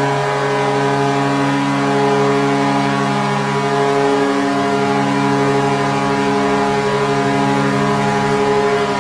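NHL arena goal horn sounding one long, steady blast: a deep chord of several tones.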